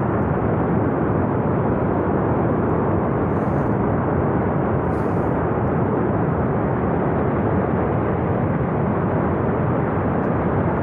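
Flash flood of water and debris rushing down a mountain river valley: a loud, unbroken rush of noise that stays steady throughout.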